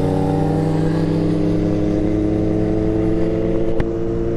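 Kawasaki Z900's inline-four engine running at steady, slowly rising revs while cruising, heard from the rider's seat with wind rushing past. A single brief click comes near the end.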